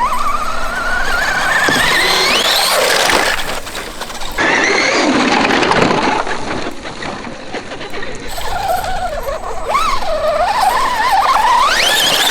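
Traxxas Stampede 4x4 VXL RC truck's brushless electric motor whining under throttle. The pitch climbs steeply over the first few seconds, a noisy rush of tyres on loose dirt fills the middle, and near the end the whine wavers and climbs again.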